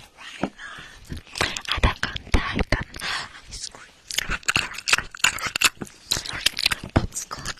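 Close-up ASMR mouth sounds into an ear-shaped microphone: a rapid, uneven run of clicks and crackles, mixed with fingers cupping and rubbing the mic ear.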